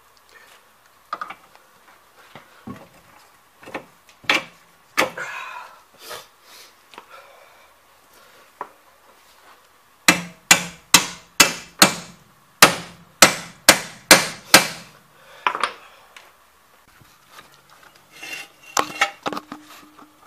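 Hammer blows on metal at a car's rear suspension: about a dozen sharp strikes in quick succession midway, with scattered knocks and clinks of tools before and after.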